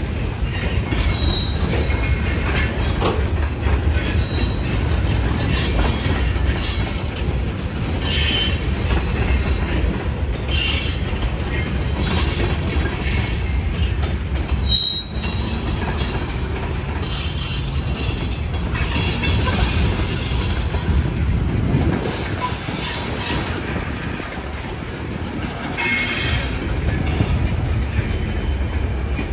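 Freight cars rolling past: a steady low rumble of steel wheels on rail, with repeated short high-pitched wheel squeals. The sound breaks off briefly about halfway through.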